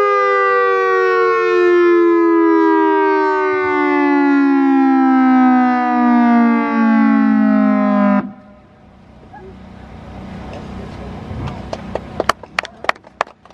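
Federal Signal EOWS 612 electronic warning siren sounding a tone that slides slowly down in pitch, then cutting off suddenly about eight seconds in. Clapping follows near the end.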